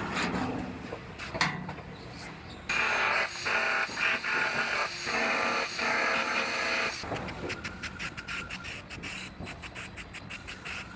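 Aerosol can of weld-through primer spraying for about four seconds in a few short bursts. Before and after the spraying, quick rattling clicks come from the mixing ball as the can is shaken.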